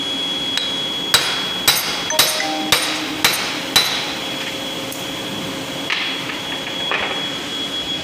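Hammer blows on a cast-alloy worm gearbox housing as it is knocked apart for repair: six sharp metallic strikes about half a second apart, then two lighter knocks a couple of seconds later.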